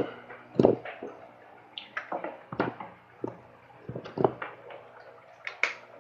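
Irregular clicks and knocks, about seven short taps spread over a few seconds, as grooming tools are handled on the grooming table, over a steady low hum.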